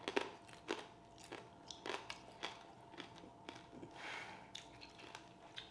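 A person biting and chewing through the hard candy shell of freezer-chilled candied fruit: faint, irregular crunches.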